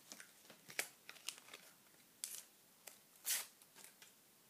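Small sticker packet wrapper being torn open and crinkled by hand: several short, sharp rustles, the loudest about three seconds in.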